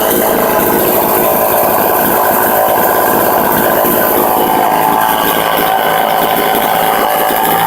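Homelite XL12 54cc two-stroke chainsaw engine idling steadily.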